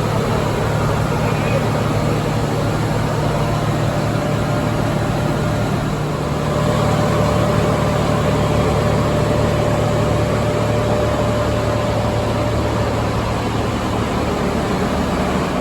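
Machinery of a coal-fired steam boiler plant running: a loud, steady drone with a low hum. About six seconds in it gets a little louder and a thin steady whine comes in.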